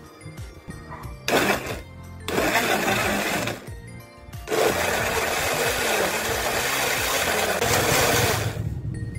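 Imarflex personal blender pulsed on three times: a short burst about a second in, a second-long run, then a steady run of about four seconds, its motor and blades blending fruit into a smoothie.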